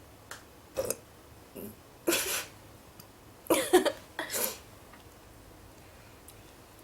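A young woman burping: several short burps in a row, the loudest about three and a half seconds in, brought up after drinking water rather than a fizzy drink.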